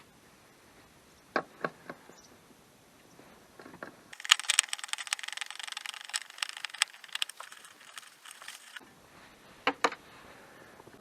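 Hand ratchet clicking rapidly for about four and a half seconds as a bolt is undone, with a few separate knocks of tools shortly before and after.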